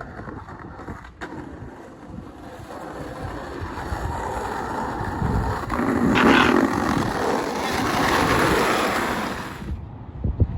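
Skateboard wheels rolling over pavement with wind buffeting the microphone. The rumble grows louder toward the middle and eases off near the end.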